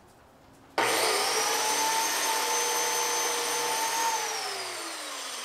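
An electric power-tool motor switched on, spinning up to a steady high whine that holds for about three seconds, then switched off and winding down with falling pitch.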